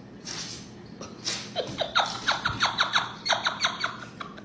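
A quick run of short squeaks, each falling in pitch, several a second, starting about a second and a half in.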